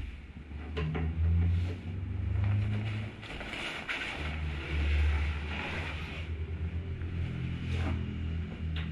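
Engine of a Yamaha Fazer 150 motorcycle running at low revs, swelling and easing off a few times, with a few short knocks.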